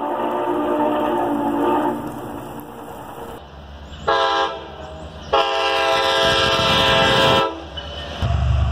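Locomotive chime whistle blowing. First comes one long chord from the Norfolk and Western J-class 611 steam locomotive, fading away after about two seconds. Then come a short blast about four seconds in and a long blast of about two seconds, over the low rumble of a passing train.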